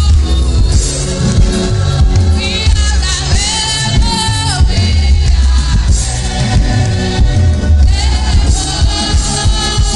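Christian worship song with sung vocals over a steady bass-heavy beat.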